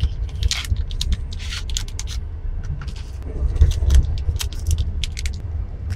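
A chocolate bar's wrapper crinkling and crackling in irregular bursts as it is opened, over the steady low rumble of a moving train.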